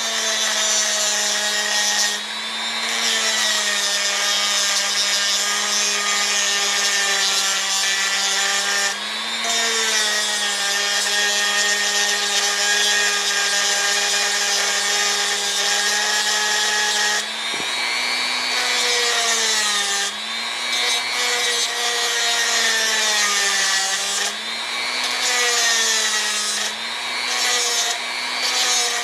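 Electric grinder running and grinding a flat spot onto the end of an RC boat's flex cable drive shaft: a steady motor whine over a gritty hiss. The whine sags in pitch and recovers several times, as if the motor is being loaded.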